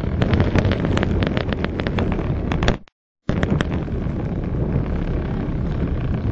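Wind buffeting the microphone of a small camera mounted on a stunt kite in flight: a dense rumble with rapid crackling pops. The sound drops out completely for about half a second around three seconds in.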